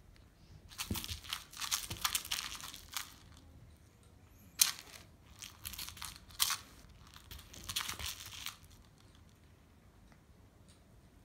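Scratchy, crinkling rustles in two stretches, from about a second in to three seconds and again from about four and a half to eight and a half seconds, with a few sharp taps, the loudest near the start of the second stretch: a kitten scrabbling and pouncing at a fur teaser toy on a blanket.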